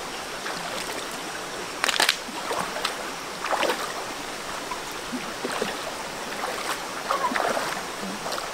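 Water flowing steadily, broken by a few short splashes, the loudest about two seconds in.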